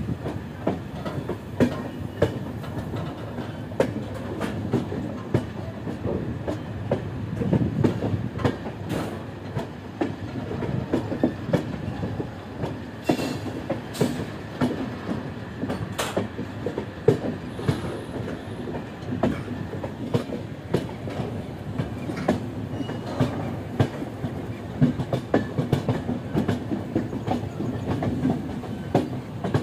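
Express passenger train running along the track, heard from an open coach doorway: a steady rumble of the wheels with a rapid, irregular clatter of sharp clicks as they run over the rails.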